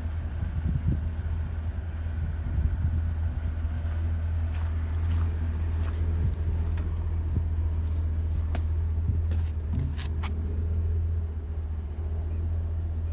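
Engine of a GMC C4500 bucket truck idling with a steady low rumble. A few sharp clicks come about eight to ten seconds in.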